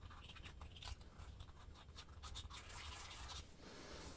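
Faint scratches and small clicks, many in quick succession, of a light interference filter being handled and fitted onto a PVS-14 night vision monocular.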